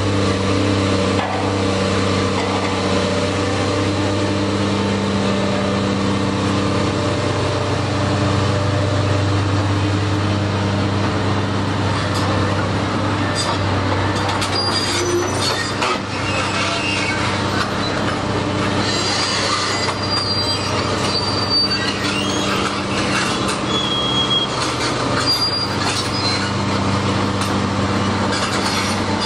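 Caterpillar tracked excavator's diesel engine running with a steady low hum. From about halfway in, short high metallic squeals and clanks come in as the machine moves its boom and bucket.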